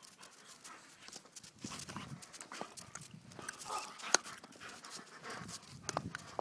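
Crunching steps and scampering paws in snow, made up of many short crackly clicks, with one sharp click about four seconds in.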